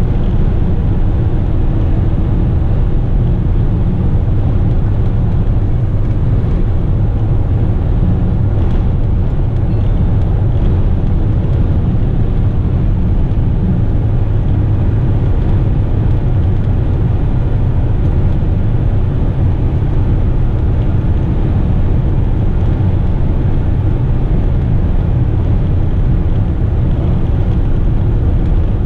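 Western Star tipper truck's diesel engine droning steadily at highway cruise under a full load, heard from inside the cab together with road noise.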